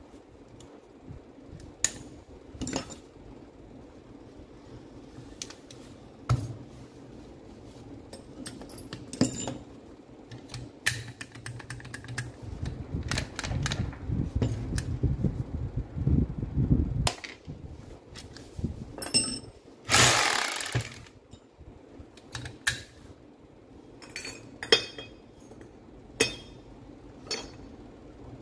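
Hand assembly of a rotary hammer's tool holder and gear housing: scattered metal clicks, clinks and knocks as parts are fitted, with a denser rattling stretch in the middle. About 20 seconds in comes one loud rushing burst lasting about a second.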